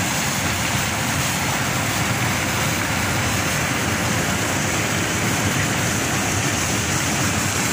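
Steady rushing roar of a ship loader trimming coal: coal pouring down the loader's spout into a bulk carrier's cargo hold, with the loader's machinery running.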